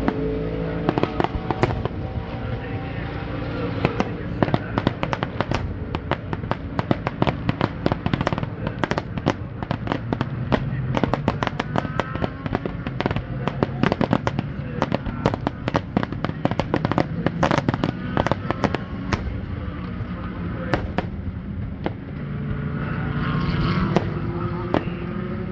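Aerial fireworks display: a long run of sharp bangs and crackling bursts, many coming close together through the middle, over a steady low rumble.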